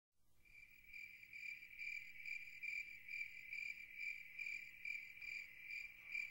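Faint crickets chirping, a steady high trill pulsing about twice a second.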